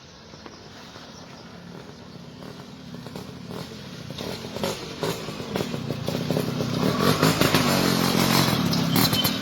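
Suzuki Crystal two-stroke motorcycle running through a hollowed-out straight-through exhaust, a crisp, rattly note. It grows steadily louder, with sharp crackles from about halfway on.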